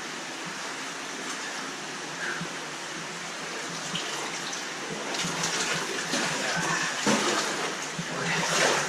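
Water rushing through a cave passage, a steady gushing that grows louder and more uneven from about halfway through.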